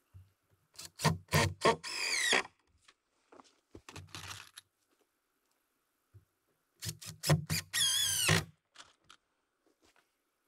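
Cordless drill driving screws into 2x lumber, in two main runs about a second and about seven seconds in: each starts with a few short trigger bursts, then the motor runs for a second or so with a wavering pitch. A weaker, shorter run comes around four seconds in.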